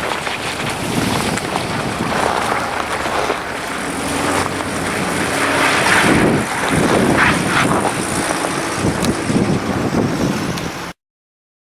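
Strong gusting wind of a ground blizzard buffeting the microphone, a loud rushing roar that swells and eases; it cuts off abruptly near the end.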